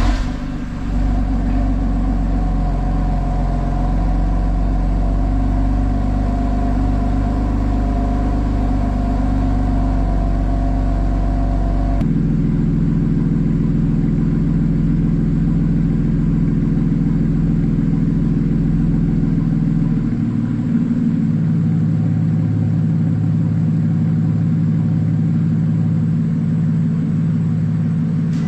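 2019 BMW M4's twin-turbo S55 inline-six idling steadily just after being started. Its tone shifts abruptly about 12 seconds in and again around 20 seconds in.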